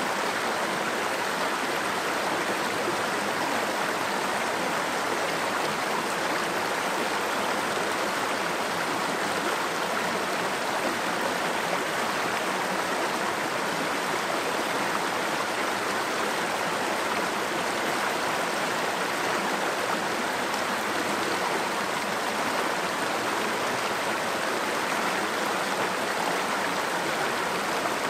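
Small rocky stream running over boulders: a steady rush of water through shallow riffles.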